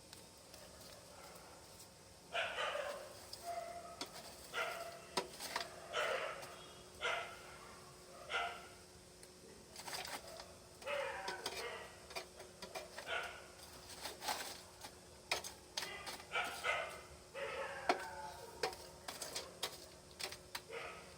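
A dog barking in a long series of single barks, about one every second or so and irregularly spaced, with a few sharp clicks in between.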